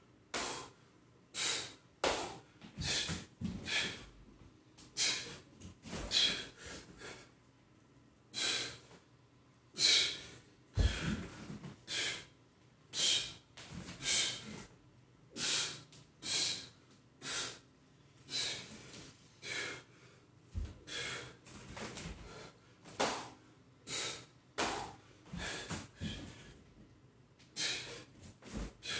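A man breathing hard from exertion, with sharp, forceful exhalations through the mouth about once a second as he works through burpees and kettlebell lifts. Two dull thumps stand out, one about a third of the way in and one about two thirds in.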